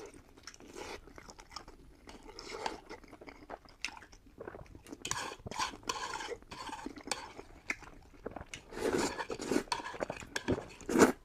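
Close-miked eating: irregular chewing and crunching of fried pork and noodles, with cutlery clinking against the bowl and a sharp knock near the end.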